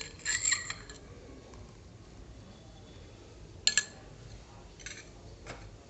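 A spoon clinking a few times against a bowl while oil is spooned into the egg and sugar mixture: a short run of light clinks just after the start and another single clink near the middle.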